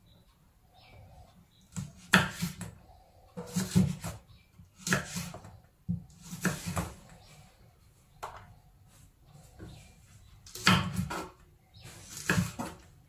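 Kitchen knife chopping green chillies on a wooden cutting board: short runs of quick knocks, about six runs, with a longer pause around the middle.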